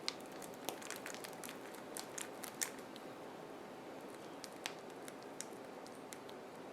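Faint scattered clicks and light scrapes of spackle fake icing being scooped and handled, a sharp tick every second or so over a steady low room hum.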